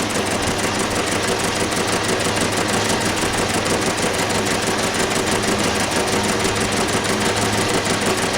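Old belt-driven engine lathe running steadily, a constant machine hum with even mechanical noise.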